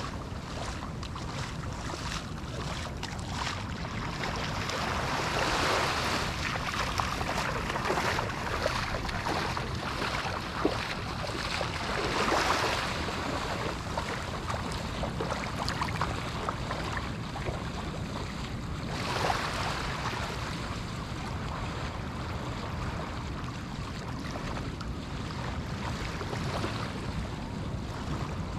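Small Atlantic waves breaking and washing up a sandy beach, over a steady low rumble of surf. Three waves swell up and fizz out about six or seven seconds apart.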